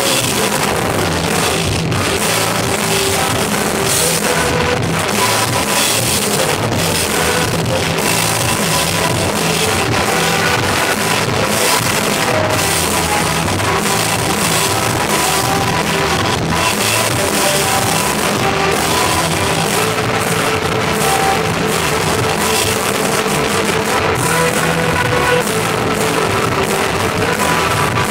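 Live rock band playing loud: drum kit, electric guitar and keyboard together, with a dense, steady wall of sound. Recorded with harsh, poor sound quality.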